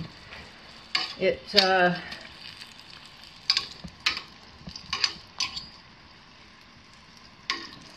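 Olie bollen deep-frying in a pot of hot oil, a low steady sizzle, with about five sharp metal clinks of spoons against the pot and bowl. A short voice sound comes about a second in.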